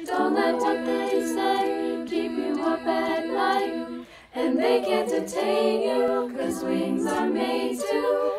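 A cappella ensemble of female voices singing in close harmony, sustained chords moving from note to note, with a short breath break about four seconds in.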